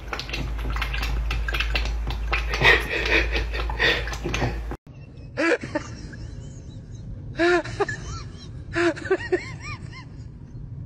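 Water splashing and spattering in a metal sink around a cat's head, with a steady low hum, cutting off abruptly about five seconds in. Then short, wavering calls from a group of goats come in clusters every second or two.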